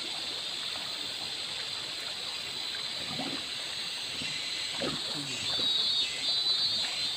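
Shallow river water running steadily over a sandy bed around a seated person, a constant rush of water that grows a little louder near the end, with a couple of brief faint sounds about three and five seconds in.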